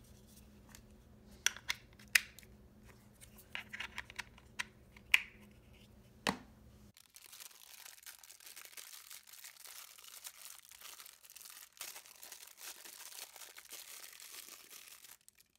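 Plastic accessory packaging being handled: crinkling and tearing, with a series of sharp clicks and crackles in the first six seconds, then faint, steady rustling.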